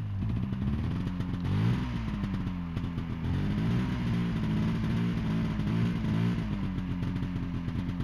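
Snowmobile engine running and being revved over and over, its pitch rising and falling every couple of seconds, while the sled is stuck in deep snow.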